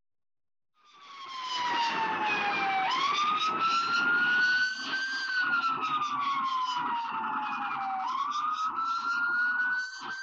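Police car siren wailing, its pitch sweeping slowly up and down about every five seconds, over engine and road noise from a police car in pursuit. It fades in about a second in.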